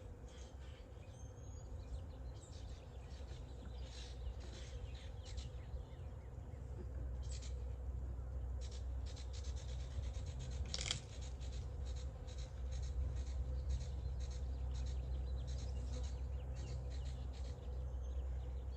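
Irregular scraping and rubbing strokes from wooden beehive frames and boxes being handled, over a faint steady hum of honeybees and a low rumble.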